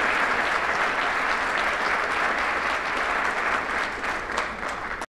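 A roomful of people applauding steadily, easing off a little near the end and then cutting off suddenly.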